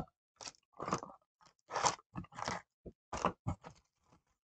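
Wrappers of Donruss Optic trading-card packs crinkling and rustling in short, irregular bursts as the packs are handled and lifted out of the box.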